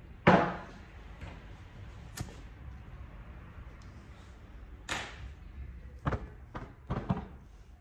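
Barber's tools being handled: a loud sharp knock just after the start, then scattered lighter clicks and taps, several close together in the last two seconds.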